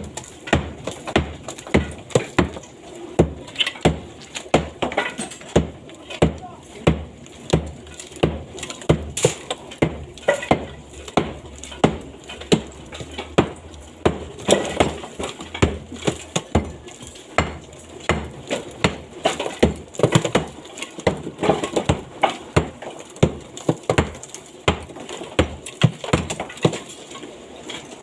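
Hammer blows on wood, repeated steadily at about three strikes every two seconds.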